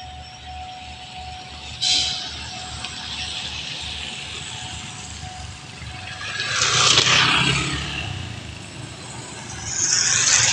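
Vehicles passing close by, one after another. There is a sudden rise in noise about two seconds in, then two louder swells that build and fade, around the middle and near the end, over a low rhythmic rumble.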